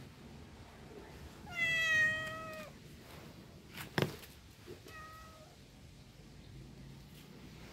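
A cat meowing twice: one long, loud meow about a second and a half in, and a shorter, fainter meow about five seconds in, with a single sharp click between them.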